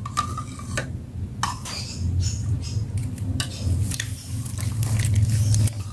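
Metal spoon clinking and scraping against a glass jug while scooping soaked almonds out of their soaking water, irregular light clinks over a low steady hum.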